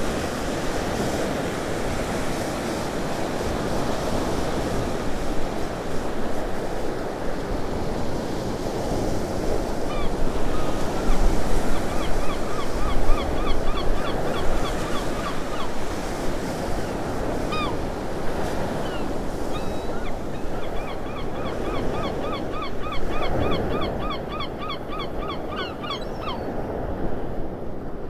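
Sea waves washing steadily on a beach. A bird calls twice in fast runs of short repeated notes, about four a second, once around the middle and longer near the end, with a few single calls in between.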